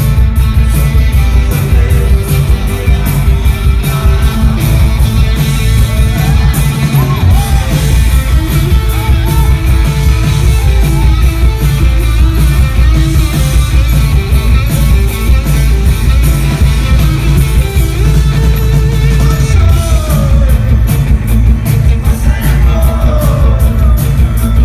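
Indie rock band playing live: electric guitar and keyboards over a loud, steady low end, with a voice singing at times.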